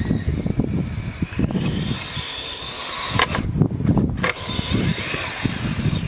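Whine of an RC snowcat's brushless electric motors driving, the pitch rising and falling with the throttle and cutting out briefly a little past halfway, over low irregular rumbling noise.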